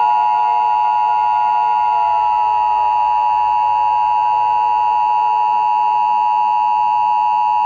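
Emergency Alert System attention signal: two steady tones sounded together, held loud and unchanging for about eight seconds and cutting off abruptly near the end. Fainter tones slowly falling in pitch run underneath.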